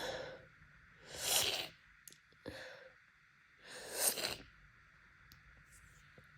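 A person's heavy, noisy breathing through an itchy nose in an allergic sneeze build-up: three breathy bursts about a second and a half apart, with no sneeze breaking out.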